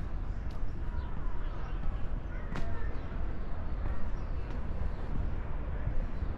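Outdoor ambience while walking over old stone paving: a steady low rumble, with a few sharp footstep clicks on the stones.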